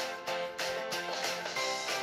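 Background music with a quick, even pattern of plucked notes, about three a second.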